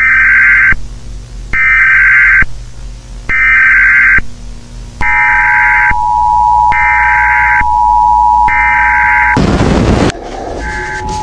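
Emergency alert broadcast tones: six short, loud, screeching data bursts about 1.7 seconds apart, with the steady two-tone attention signal starting about five seconds in under the last three. Near the end a burst of TV static cuts across it, then a fainter hiss with the tone continuing.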